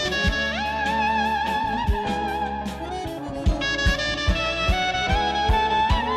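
Clarinet improvising a melody with a wide, wavering vibrato, sliding up into a high held note just after the start. Drum beats and a held low accompaniment run underneath, in the style of Azerbaijani wedding music.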